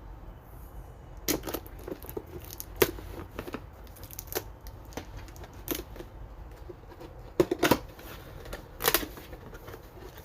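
A product box being opened by hand: irregular tearing, rustling and sharp clicks of cardboard and packaging, loudest a little over a second in, near three seconds, and twice at about seven and a half seconds.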